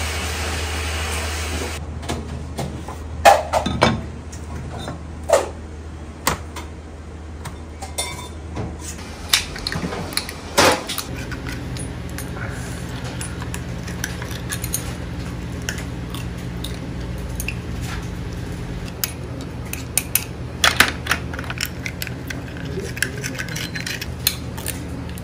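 Hamaguri clams being shucked with a knife: scattered clicks and clinks of steel blade on shell and of shells knocking against a metal tray, over a steady low hum.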